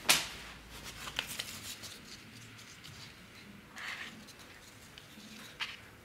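A sheet of printing paper being handled on the bed of an etching press: a sharp click at the start, then light ticks, a soft paper rustle about four seconds in, and another tick near the end.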